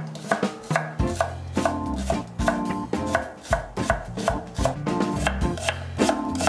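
Chef's knife slicing green onion and then onion on a wooden cutting board: crisp knife strokes against the board, about three a second, over background music.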